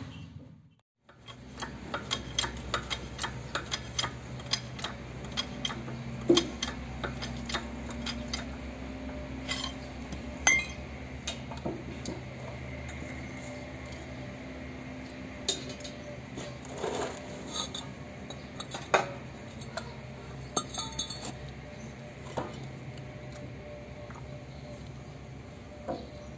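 Steel tools and parts clinking and tapping against each other while a truck differential drive pinion and its tapered roller bearing are handled on a press, with a few sharper metal knocks, over a steady low hum.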